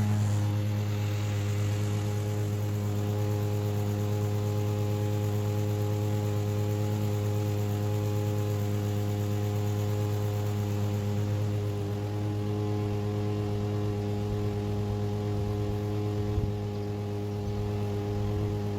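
Masport Rotarola push mower's engine running steadily while mowing, an even hum with no change in speed. A brief knock near the end.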